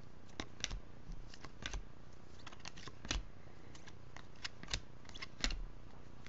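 A stack of 2015 Bowman Chrome baseball cards being flipped through by hand: stiff, glossy card stock sliding and snapping against card in irregular clicks, two or three a second.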